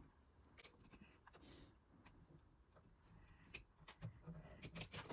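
Near silence with a few faint, scattered clicks of small-parts handling, as a wire is worked around a light switch's screw terminal.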